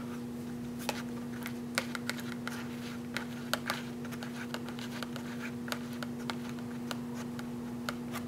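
Palette knife mixing acrylic paint on a paper palette: scattered light clicks, taps and scrapes, over a steady low hum.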